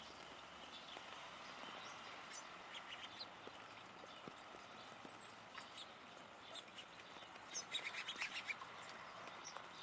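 Steller's jay pecking at suet in a wire-basket feeder: scattered faint taps, with a quick run of sharper ticks about eight seconds in, over a faint steady hiss of light rain.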